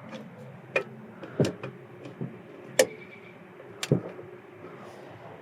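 About five sharp, separate clicks and light metal knocks, spread unevenly over a few seconds. They come from a 14 mm wrench working on a rear brake caliper's slide-pin bolts to loosen them.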